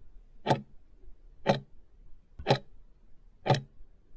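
Clock ticking steadily, one sharp tick a second, four ticks in all.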